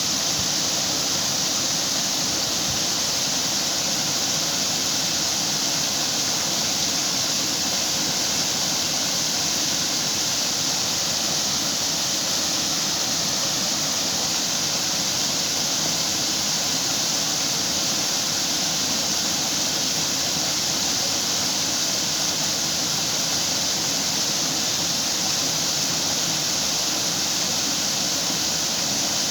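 Small waterfall splashing steadily, an even hiss of falling water.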